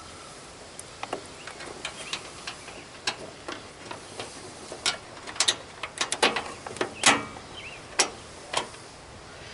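Irregular clicks and taps of a bolt, washers and a lock nut being fitted to a plastic mower-hood grill, growing busier and louder about halfway through.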